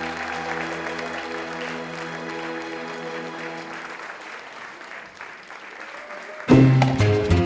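Audience applauding as the last held chord of a live performance dies away, the applause slowly fading. About six and a half seconds in, loud upbeat Latin dance music starts abruptly.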